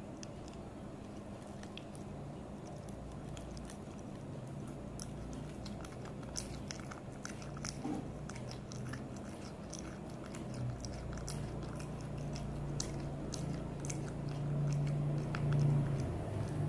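Cat chewing and biting raw chicken breast, with many short wet mouth clicks that come thickest through the middle. A low steady hum underneath grows louder near the end.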